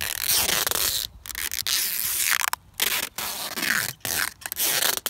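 Packing tape being pulled off its roll as it is wrapped around a firework box and its wooden stakes: a ripping screech in several long pulls with short breaks between.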